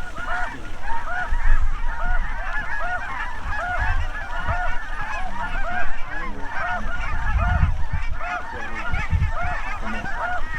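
Many geese honking at once in a dense, overlapping chorus of short calls, as from a large flock close by. A few low bumps and rumbles sound under it.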